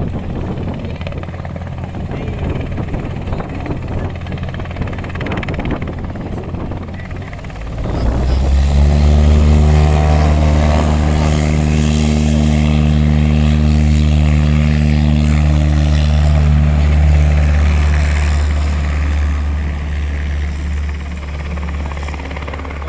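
Helicopter heard close by: a low rumble that jumps suddenly louder about a third of the way in with a steady deep hum, holds, then fades over the last few seconds.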